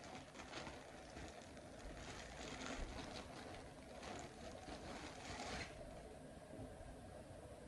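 Plastic garment bag around a t-shirt being torn open and crinkled, an irregular faint rustling and crackling that stops about three-quarters of the way through.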